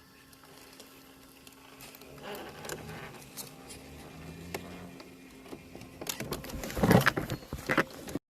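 Traxxas TRX-4 RC crawler driving: a faint motor and gear whine under scattered clicks and crunching from the tyres and chassis over the ground, growing busier and loudest about seven seconds in, then cutting off abruptly.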